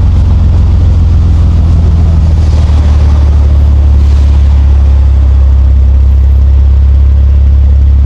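Nissan Skyline R34 GT-T's turbocharged straight-six running with a steady, loud low drone, its note shifting slightly lower about two and a half seconds in.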